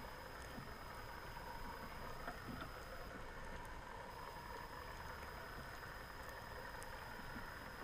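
Underwater ambience as picked up by a camera in a waterproof housing: a steady muffled hum and hiss with a faint steady high whine, and a few faint scattered clicks.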